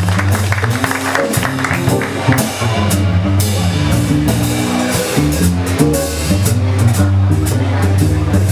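Live band playing an instrumental passage, with a drum kit keeping a steady beat over bass and guitar.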